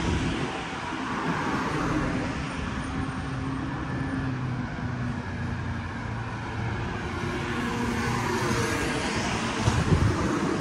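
Road traffic on a city street: motor vehicles passing, with a steady low engine hum and tyre noise that swells and eases. A couple of brief thumps near the end.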